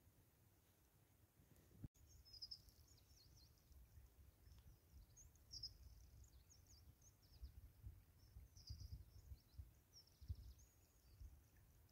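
Faint, scattered high-pitched chirps and short trills of small birds, starting after a brief click about two seconds in, over a low fluctuating rumble on the microphone.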